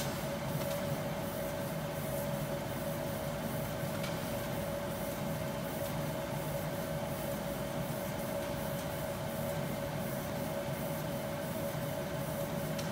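A machine running steadily, with a constant mid-pitched whine over an even rushing noise.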